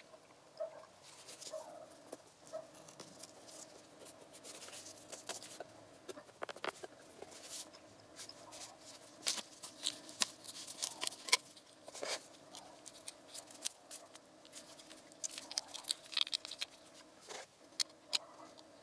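Gloved hands handling a plastic motor-oil bottle: irregular sharp clicks, crackles and rubbing, thickest about halfway through as the screw cap is twisted off and its seal broken.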